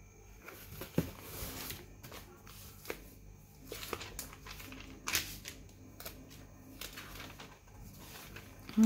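Glossy magazine pages being handled and turned: soft paper rustles and flicks, with a couple of sharper snaps, about a second in and about five seconds in.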